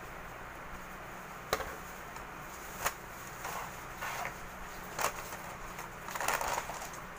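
Food packaging and tableware being handled: a few sharp taps and short rustles, then a longer rustle of paper and cardboard about six seconds in as a hand reaches into a pizza box.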